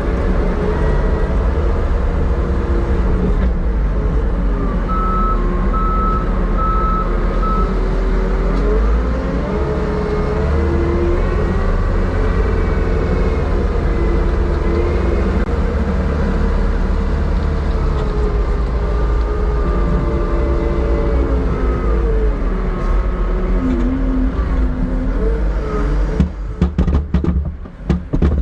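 Vehicle driving over bumpy ground, its engine and road rumble heard steadily from inside the cab, with wavering tones above the rumble. The sound cuts in and out several times near the end.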